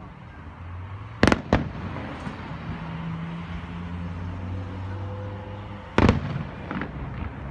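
Aerial fireworks shells exploding: two loud bangs in quick succession just over a second in, then another loud bang about six seconds in followed by a few smaller pops.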